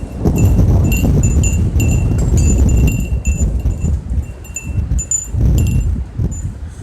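Thunder rumbling low and loud, swelling and fading. Short, high ringing notes repeat over it several times a second.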